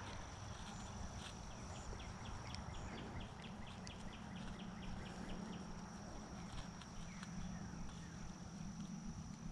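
Spinning reel being cranked to retrieve the lure: a run of quick, even ticks, about five a second, over a steady high whine.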